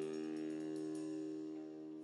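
Closing background music: a held, sustained chord with a few light notes struck over it in the first second, beginning to fade out near the end.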